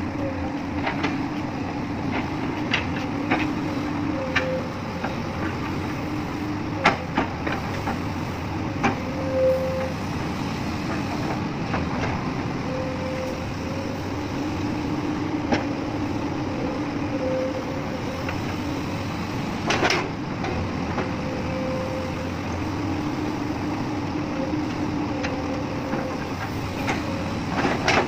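Magnetic excavator working: its engine runs steadily, with a hydraulic hum that swells and fades every few seconds. Scattered sharp metallic knocks are the loudest sounds, a few seconds apart.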